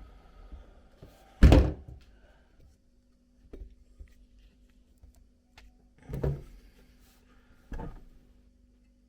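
A loud thunk about one and a half seconds in, then three softer knocks and clunks, from a rusty steel car part and its tub of rust remover being handled.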